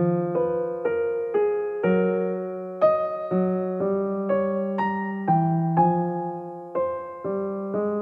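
Background music on a piano-like keyboard: single notes struck at an even pace of about two a second.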